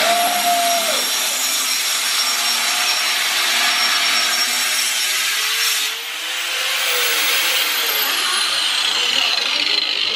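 Handheld angle grinder cutting through steel square tubing: a continuous harsh grinding rasp that dips briefly about halfway through. Over the last couple of seconds a high whine falls in pitch as the disc winds down.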